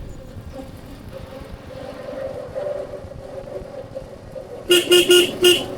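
Vehicle engine running steadily, then a vehicle horn honked four quick times in a row near the end.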